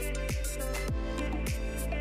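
Background music with a steady beat: a deep kick drum that drops in pitch on each hit, a little under two hits a second, under sustained notes.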